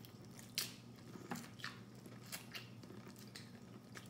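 Faint wet chewing and lip-smacking of someone eating a buttery seafood boil: a handful of short, irregular smacks and squishes, the sharpest about half a second in.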